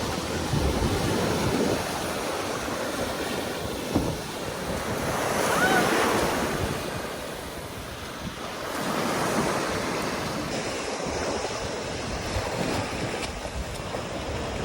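Sea waves breaking and washing up on a sandy beach, the surf swelling and easing in surges, with wind buffeting the microphone.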